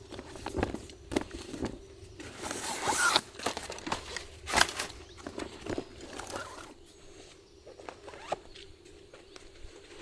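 Stiff waterproof fabric of a bicycle pannier rustling and crinkling as its roll-top is handled and rolled shut, with scattered sharp clicks, the loudest about four and a half seconds in. It grows quieter after about seven seconds.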